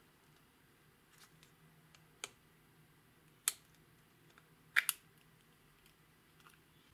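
A plastic makeup compact clicking as it is pried open: a few sharp, separate plastic clicks, the loudest a quick double click a little past the middle.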